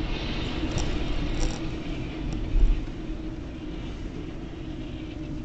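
Steady road and engine noise of a car driving at speed, heard from inside the cabin, with a short low thump about two and a half seconds in.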